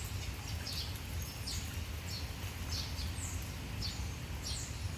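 Small birds chirping: short high notes that fall in pitch, about two a second, over a steady low background rumble.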